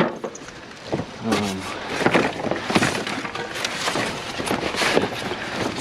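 Scrap metal and debris being rummaged and shifted in a construction dumpster: irregular clanks, knocks, scrapes and rustling throughout.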